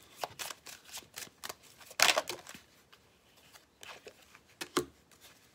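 A deck of tarot cards being shuffled in the hands: a quick run of soft card flicks, then a louder rustle about two seconds in. A few scattered taps follow as a card is drawn and laid on the table.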